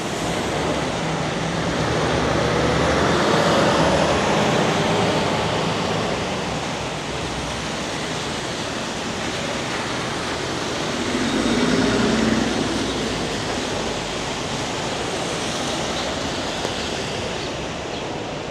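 Rainy city street: a steady hiss of rain and tyres on wet pavement, with traffic passing. It swells twice, about three seconds in and again about twelve seconds in, the second time with the low hum of a city bus going by close.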